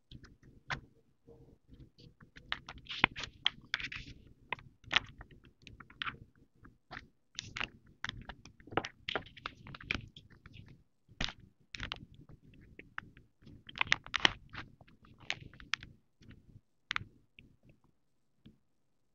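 Plastic wrapping crinkling and small plastic stationery items being handled: irregular crackles and clicks that die away near the end.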